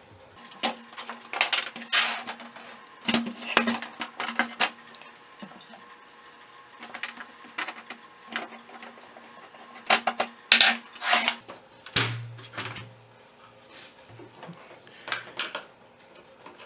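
Hard plastic computer case and a screwdriver being handled on a table: irregular clusters of sharp clicks, knocks and clatter, with a duller thump partway through.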